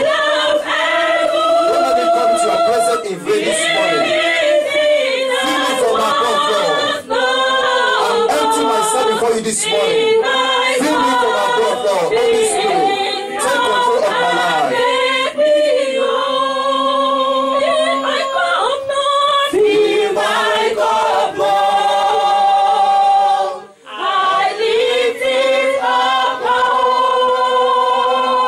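Unaccompanied gospel singing: a man singing into a microphone, with other voices blending in like a choir. The singing breaks off briefly about three quarters of the way through.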